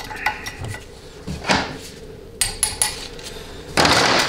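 A steel pick and small metal parts clicking and knocking against a transmission valve body and the workbench during disassembly: a handful of sharp clicks and light knocks, then a louder scraping rub lasting about half a second near the end.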